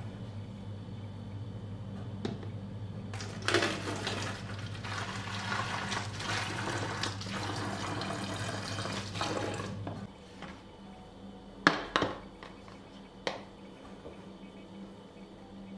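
Water poured from a plastic measuring jug into an empty 1.5-litre plastic PET bottle, a steady fill lasting about six seconds. Soon after it stops, a few sharp plastic knocks as a plastic funnel is set into the bottle's neck.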